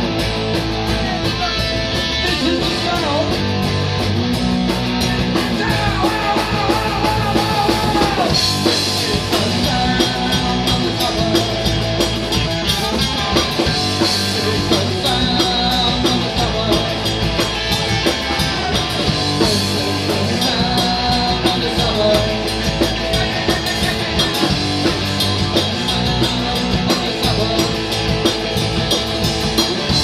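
Live punk rock band playing loud and without a break: electric guitars, bass guitar and a drum kit keeping a steady beat.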